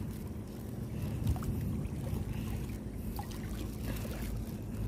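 Shallow seawater sloshing gently with a few small splashes and ticks as a hand feels through the sand for clams, over a steady low rumble.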